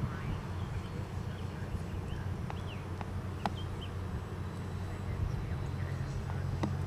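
Steady low hum of a small electric RC trainer airplane flying overhead, with a slight change in pitch about five seconds in. A few short bird chirps and faint clicks sound over it.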